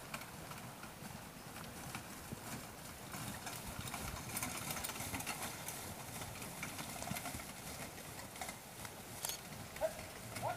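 Hoofbeats of a pair of carriage horses trotting on grass, louder about midway as they pass closest, then fading.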